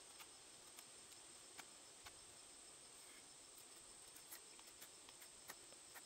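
Faint, irregular clicks of a pocket knife's straight blade cutting and splitting chips off a log, over a steady high-pitched insect trill.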